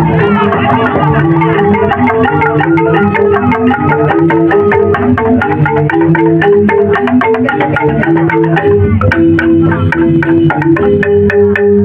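Joged bumbung gamelan: bamboo xylophones (grantang) playing fast, interlocking struck melodies at a steady, even loudness.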